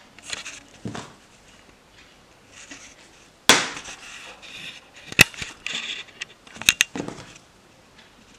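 Handling noise as the ring light's power cable and inline button remote are picked up: irregular rustles with a few sharp clicks, the loudest about three and a half seconds in and a quick pair near seven seconds.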